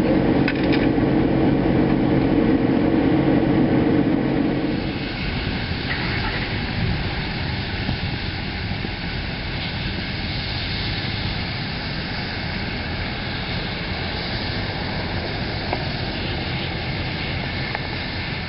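Medical helicopter's rotor and turbine engine as it hovers low to land, a steady deep drone. About four and a half seconds in the drone drops away, leaving a steady rush with a faint high turbine whine from the helicopters running on the ground.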